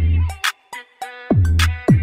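Background music with a drum-machine beat: deep bass notes that slide down in pitch, sharp snare or hi-hat hits, and a held synth melody.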